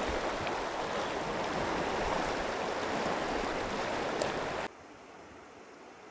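Fast, choppy river current rushing past the bank, a steady noise of running water. About four and a half seconds in it cuts off abruptly, leaving only a faint hiss.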